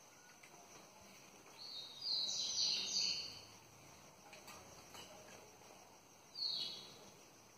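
High-pitched chirping calls of a bird: a run of stepped chirps about two seconds in, and a shorter call near the end, over a faint steady background hum.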